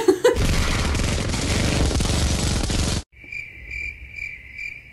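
Sound effect of rapid machine-gun fire for about three seconds, cut off abruptly, followed by a comedic crickets sound effect: a high chirp pulsing about two to three times a second.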